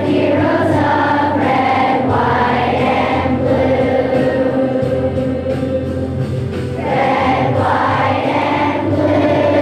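A large group of children singing together in unison, with a steady musical accompaniment underneath.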